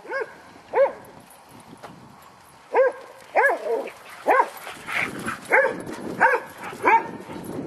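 A dog barking repeatedly in short, arched barks while playing with other dogs. After two barks there is a pause of about two seconds, then the barks come roughly every half second.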